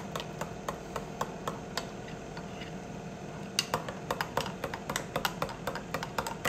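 Turkey meatballs browning in hot fat: irregular crackling and popping over a steady low hum, with a few louder pops about halfway through.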